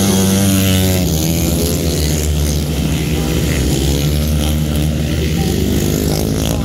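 A pack of grass-track racing motorcycles at race pace, their engines revving and falling in pitch as they go round the track.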